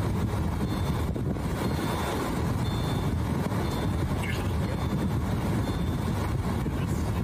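Vehicle driving slowly down a flooded street in hurricane wind and rain: a steady low rumble and hiss, with faint high beeps that come and go.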